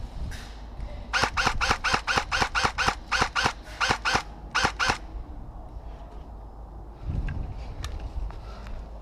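Airsoft electric rifle firing a rapid string of shots, about six a second, broken into a few short bursts and rapid single shots, from about a second in until about five seconds in.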